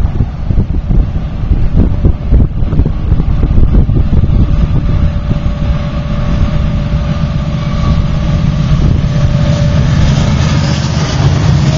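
Union Pacific freight train's diesel locomotives approaching and passing close by: a steady engine drone with a steady tone on top that grows louder through the second half. Wind buffets the microphone in the first few seconds.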